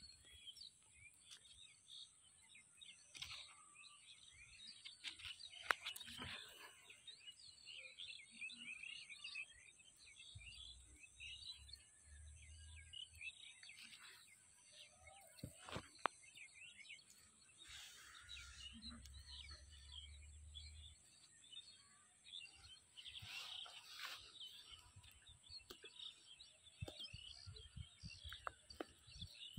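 Faint outdoor ambience of many small birds chirping over one another, over a steady high hiss. A few sharp clicks and two brief low rumbles come through, one about ten seconds in and one near the middle.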